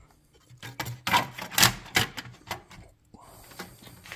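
Sharp clicks and knocks of a circuit board and small parts being handled against the opener's plastic housing, then a steady rustle from about three seconds in.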